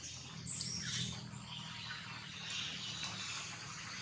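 Outdoor ambience of insects chirring steadily, with a few quick high falling calls about half a second to a second in.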